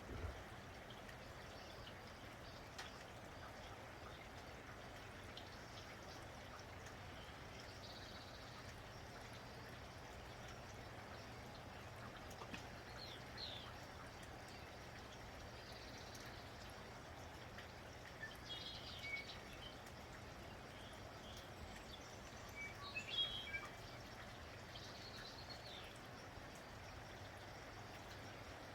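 Steady falling rain, with a few short bird chirps now and then; the loudest cluster of chirps comes about three-quarters of the way through.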